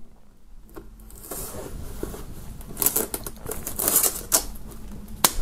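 Folding-knife blade slitting and tearing plastic shrink-wrap film on a box, the film crinkling with rapid small crackles and ticks, and one sharp click near the end.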